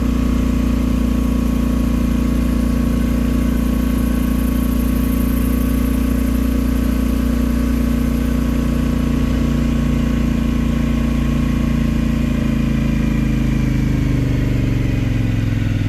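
Motorcycle engine running steadily at low road speed, its pitch dropping near the end as it slows down.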